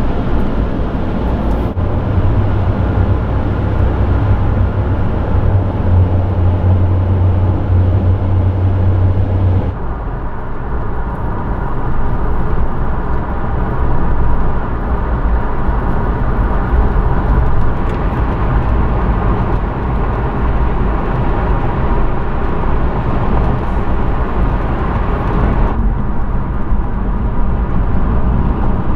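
Steady road and tyre noise with a low engine drone, heard from inside a car driving at highway speed. The low drone is strongest in the first third. The sound shifts abruptly about two seconds in, about ten seconds in and near the end.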